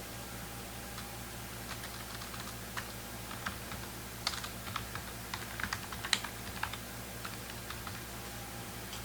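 Typing on a computer keyboard: irregular bursts of keystrokes that stop near the end, over a steady low electrical hum.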